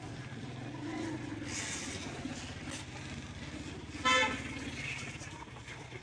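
Street traffic sound with a vehicle engine running steadily, and a single short vehicle-horn honk about four seconds in, the loudest sound.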